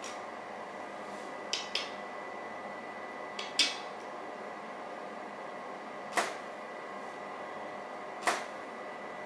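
DSLR camera shutter clicking six times, in two quick pairs and then two single shots, over a steady electrical hum.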